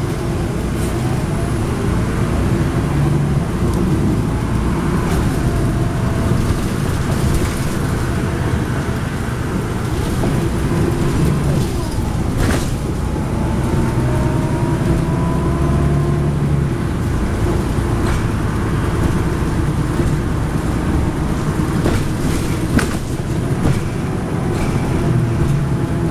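Interior of a 2010 NABI 40-SFW transit bus cruising on a highway: the rear-mounted Cummins ISL9 diesel engine's steady drone under constant road noise, with a few sharp clicks from the cabin.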